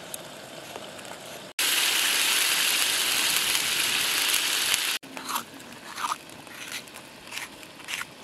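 Tomato and onion sizzling in a hot pot for about three seconds, a steady hiss that starts and stops abruptly, then a knife slicing through crisp green and red peppers in short crunchy cuts about once a second.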